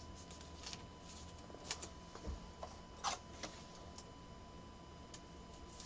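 Faint scattered clicks and light rustles of trading cards and packaging being handled, with the sharpest click about three seconds in, over a faint steady high hum.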